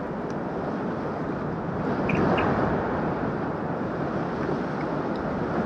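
Steady rushing noise of wind on the microphone and water moving along a kayak under way, swelling a little about two seconds in.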